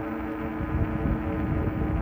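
E-bike underway: a steady electric motor hum under low, uneven wind buffeting and road rumble on the microphone.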